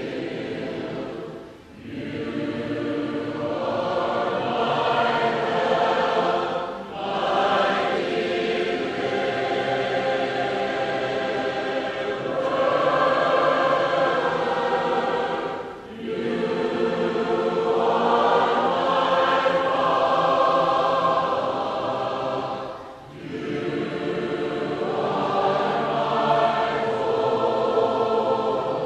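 A church congregation singing an invitation hymn unaccompanied, in the a cappella style of the Churches of Christ. Long held sung lines, broken by brief pauses between phrases about four times.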